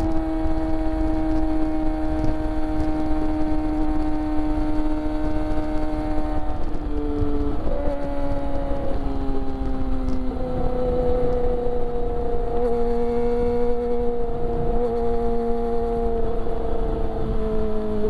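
Kawasaki Ninja ZX25R's inline-four engine through an aftermarket Akrapovic exhaust, running high in the revs while riding. Its pitch holds steady and sags slowly, shifts and steps about 7 to 10 seconds in, then settles at a new steady pitch.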